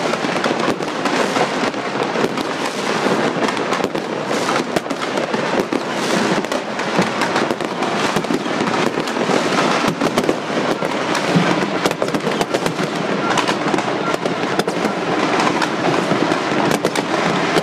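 Fireworks going off all over at once: a dense, unbroken crackle of many pops and bangs, near and far.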